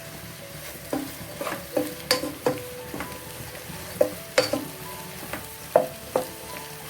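Sliced onions sizzling in hot coconut oil while a spatula stirs them, knocking against the pan about ten times with short ringing clinks.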